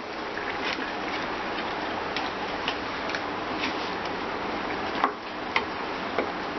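Chicken and nihari masala frying in oil with a steady sizzle while being stirred, a spoon clicking against the pot now and then.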